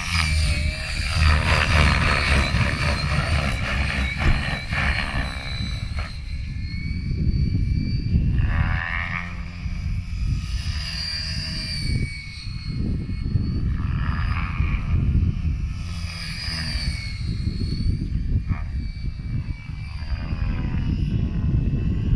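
Electric Gaui X5 radio-controlled helicopter in flight: a high motor and rotor whine that rises and falls in pitch as it manoeuvres, over a low rushing noise.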